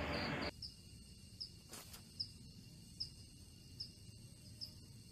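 Night insects: short high chirps repeating evenly a little over once a second over a faint steady high drone, with one click about two seconds in. A half-second of hiss comes first.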